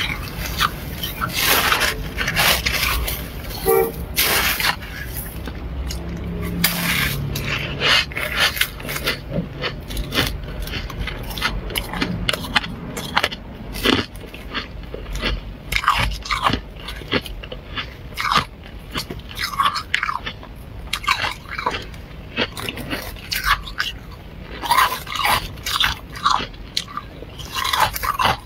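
Flaky freezer frost crunching in many short, irregular crunches as a plastic spoon scrapes into it and it is bitten and chewed.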